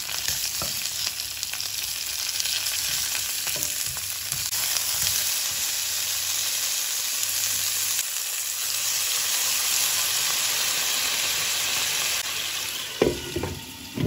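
Cauliflower slices sizzling steadily as they fry in olive oil in a pan. Near the end comes a clatter as a glass lid is set on the pan.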